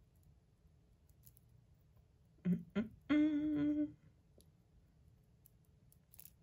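A woman hums one steady, level note for just under a second about halfway through, just after two short vocal sounds. Otherwise it is quiet apart from faint clicks of small pearl earrings and fine chain being handled.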